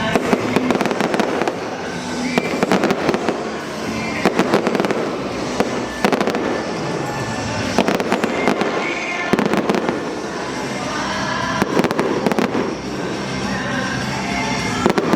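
Fireworks going off in rapid irregular clusters of sharp bangs and crackles, over background music.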